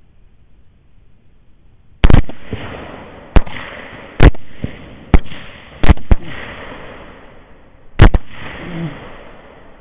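A rapid volley of rifle shots fired at feral hogs, starting about two seconds in: roughly eight sharp reports over about six seconds, some in close pairs, each followed by a rolling echo.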